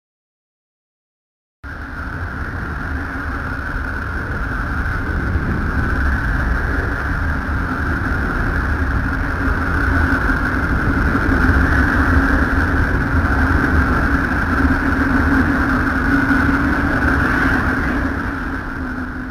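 A 'planet sound': space radio and plasma-wave emissions turned into audio, heard as a steady rumbling hiss with two held tones, one high and one low. It starts abruptly about a second and a half in and slowly grows louder.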